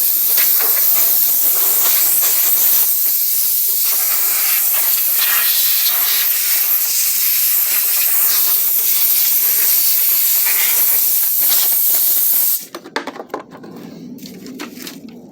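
Compressed-air blow gun hissing loudly as it blows rat-nest debris out of a riding lawn mower, cutting off suddenly about twelve seconds in.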